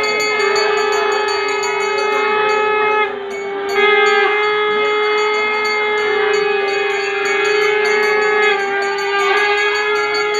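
Conch shells (shankha) blown in long, steady blasts, one sustained pitched tone that steps slightly in pitch, with a short break about three seconds in as a new blast starts.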